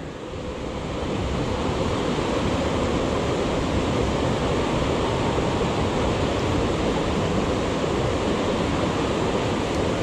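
Mountain creek water rushing steadily, building up over the first second or so and then holding even.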